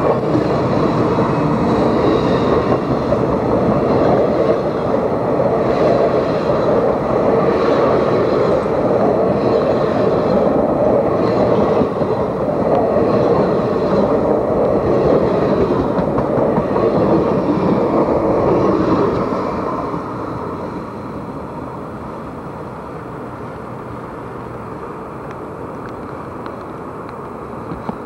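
Amtrak passenger train's bi-level cars passing close by, their wheels rolling on the rails in a loud, steady noise. About twenty seconds in the sound falls away as the last car goes by and the train moves off.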